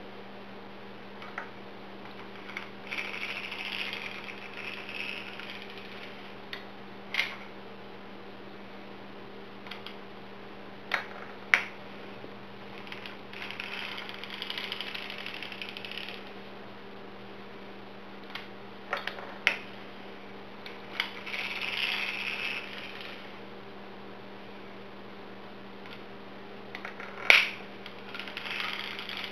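Harmony Knitter circular sock machine being hand-cranked: the needles clatter through the cams in runs of a few seconds each, with loud single clicks between runs.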